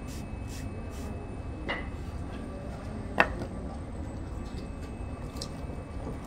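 Steady low rumble of workshop background noise, with a soft knock about one and a half seconds in and a single sharp click about three seconds in.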